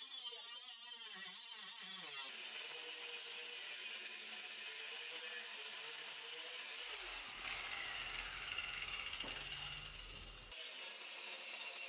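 Compact cordless cut-off tool cutting through steel brackets on a car's chassis rail. Its whine wavers in pitch as the wheel bites, then settles into a steady grinding hiss. From about seven seconds in a low rumble joins, and it cuts off abruptly about three seconds later.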